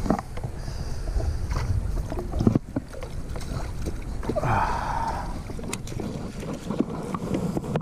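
Wind buffeting the microphone, with scattered knocks and clicks of gear being handled in a kayak, and a short rushing noise a little over halfway through.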